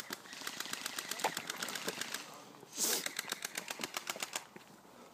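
Airsoft guns firing full-auto at some distance: two rapid strings of light clicking shots, about ten a second, the first in the opening two seconds and the second from about three seconds in, with a brief louder hiss just before the second string.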